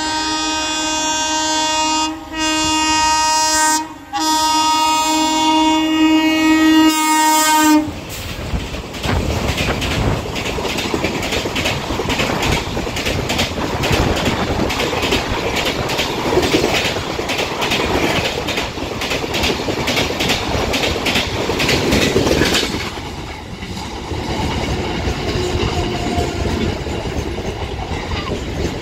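Express train passing a platform at speed: the locomotive's horn is held for about eight seconds with two short breaks, then the coaches rush past with fast clickety-clack from the wheels. Near the end a quieter suburban electric train rolls by.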